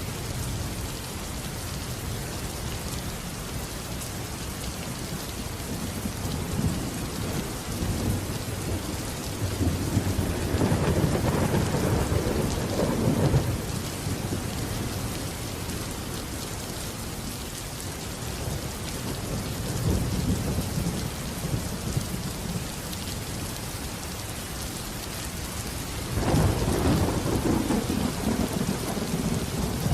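Steady rain with rolling thunder: one long rumble swells from about six seconds in and peaks around twelve seconds, and a second rumble starts sharply near the end.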